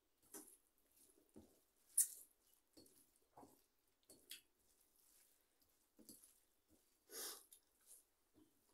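Quiet sounds of eating by hand: fingers mixing rice on steel plates, with scattered small clicks and smacks, the sharpest about two seconds in. A short breathy sound comes a little after seven seconds.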